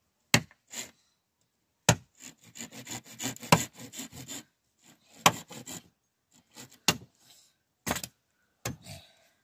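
Hand work on wood: several sharp, single knocks spaced out over the seconds, with a run of fast scraping strokes for about two seconds in the middle.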